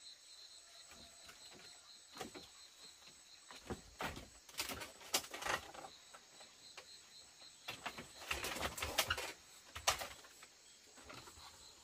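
Insects trilling steadily in the background, broken by irregular knocks and clattering from someone handling things, loudest in two bunches in the middle and later part.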